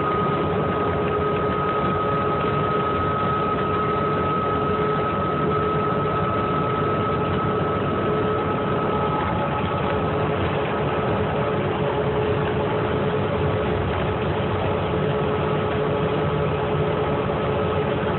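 Cabin sound of a 2008 New Flyer C40LFR transit bus under way, its Cummins Westport ISL-G natural-gas engine and drivetrain giving a steady low drone. Two steady whining tones ride on top; the higher one fades out about ten seconds in.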